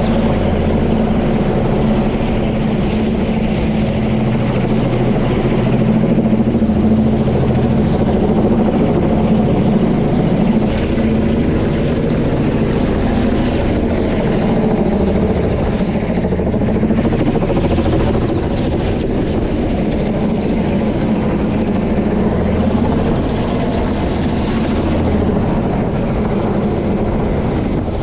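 Kamov Ka-32 helicopter overhead, its coaxial contra-rotating rotors and twin turboshaft engines making a loud, steady drone with deep, even low tones.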